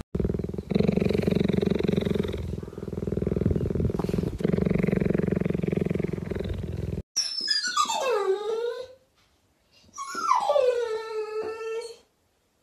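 A cheetah purring steadily for about seven seconds, in two long stretches. After a sudden cut, a dog whines twice, each cry a long call sliding down in pitch.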